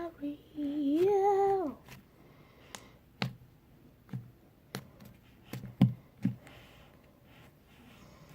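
A voice singing a short, drawn-out phrase, then quiet broken by about half a dozen scattered sharp clicks and taps.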